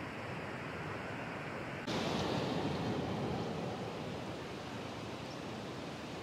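Steady rushing outdoor noise. It turns suddenly louder and brighter about two seconds in, then settles back over the next second or two.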